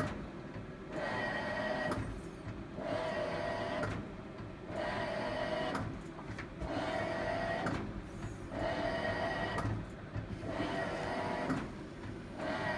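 Hitachi BW-D7MV washing machine running, making an abnormal noise: a whining, squealing mechanical sound that comes in repeated bursts roughly every one and a half seconds.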